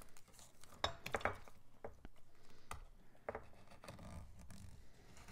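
X-Acto knife blade scraping and clicking against a plastic eyeshadow palette tray as it cuts through the paper backing. A few sharp ticks, about a second in and again around three seconds, with faint scratching between.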